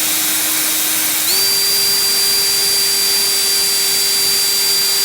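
Power-driven rotary wire brush running steadily and scrubbing rust off brake-caliper pad-retaining pins, a steady motor hum over a hiss. About a second in, the motor speeds up a little and holds that speed.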